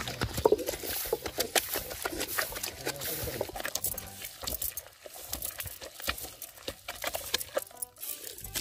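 Heavy stone pestle grinding a wet mash of mint, tomato, coconut and chillies in a granite mortar (ural): irregular crunching and gritty stone-on-stone scraping, busiest in the first half and thinning out later.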